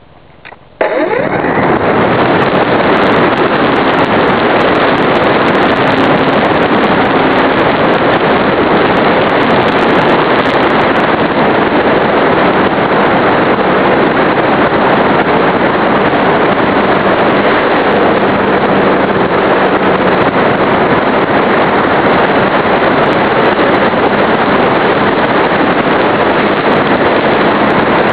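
Electric RC airplane's E-flite Power 25 brushless motor and propeller going to full throttle suddenly about a second in, then running steadily through the takeoff and climb. The microphone rides on the plane, so heavy rushing wind and propeller wash cover the motor.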